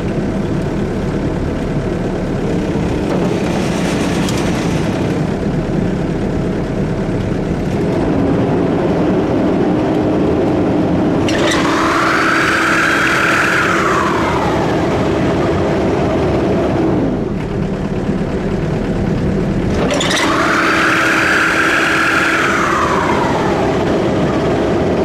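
Excavator engine running with its hydraulic AGROTK EXRC54 brush cutter attached, a steady machine hum. Twice, a higher whine rises and then falls away.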